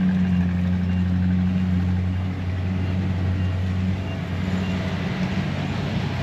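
An engine running steadily with a low, even hum, which eases slightly about two-thirds of the way through.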